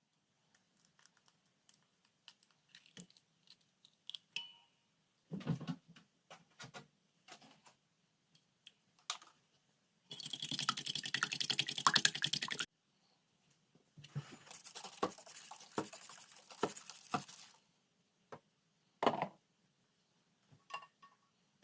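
Packing a lunchbox: scattered light clicks and knocks of containers and utensils, with a longer stretch of rapid scratchy rustling about ten seconds in and another, softer one a few seconds later.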